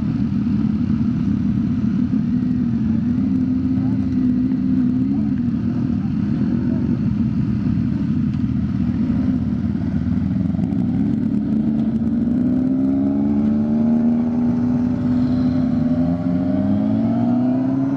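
Honda CBR 650F inline-four engine running while riding on a track, under a steady rushing noise; in the second half the engine note rises in pitch as the bike accelerates through the revs.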